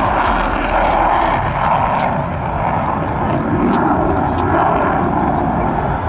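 F-35 fighter jet's single Pratt & Whitney F135 engine in afterburner, a loud steady rushing roar broken by sharp crackles.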